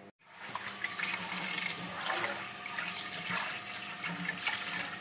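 Kitchen tap running into a pot of beef tripe in a sink, the water splashing as a hand swishes the tripe around to wash it. The water starts abruptly a moment in.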